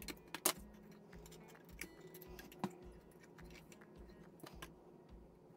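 Small clicks and taps of metal tweezers and fingers working fine thread on a plastic model ship, the sharpest click about half a second in and another a couple of seconds later. Under them, quiet background music with a soft low beat about twice a second.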